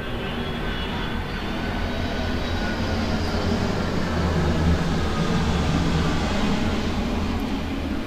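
A passing vehicle's low rumble, swelling to a peak about five seconds in and then fading.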